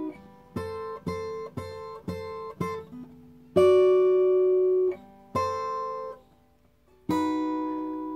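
Acoustic guitar played fingerstyle, a phrase picked out slowly: five single notes about half a second apart, then two longer-ringing notes. After a brief pause, a last note rings on to the end.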